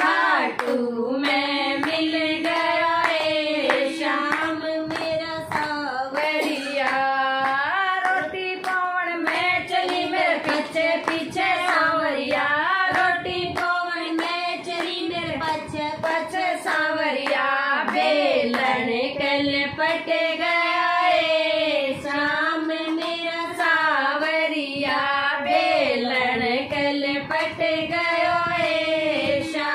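Women singing a Hindi devotional bhajan together, with steady hand-clapping keeping time.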